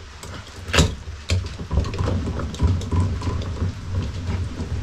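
Lag bolt being wound by hand with a cranked socket brace up into the wooden sill. It makes a low, rough grinding as it turns in the wood, with scattered clicks and knocks, the sharpest about a second in.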